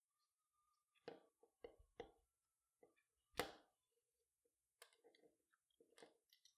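Near silence with a few faint rustles and small clicks from hand-stitching: thread being drawn through nylon webbing, with one slightly louder tick about halfway through.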